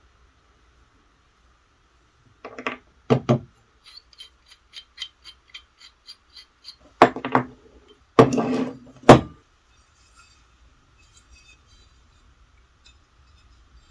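Tools and parts being handled on a workbench: a few sharp knocks and clinks, a quick run of light, evenly spaced ticks in the middle, then louder knocks and a short scraping handling sound.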